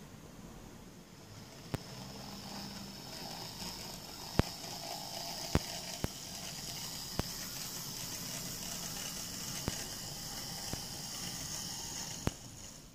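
Hornby SR Terrier model locomotive running along OO-gauge track: a steady high whirr from its small electric motor and wheels, with sharp clicks every second or so as the wheels cross rail joints and points. The whirr falls away near the end.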